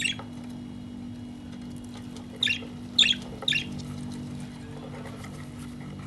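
Budgerigar giving short sharp chirps: one at the start, then three in quick succession about half a second apart, over a steady low hum.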